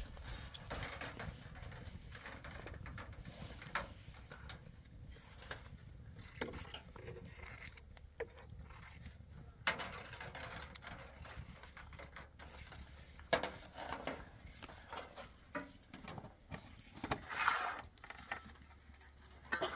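Scattered light taps, clicks and foil crinkling from handling food on a sheet of aluminium foil: a spoon drizzling oil, fish fillets being laid down and peppers cut on a metal tray, over a low steady hum.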